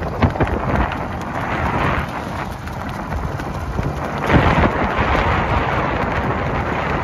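Wind buffeting the microphone of a camera moving along the road: a loud, rough rumbling noise that swells about four seconds in.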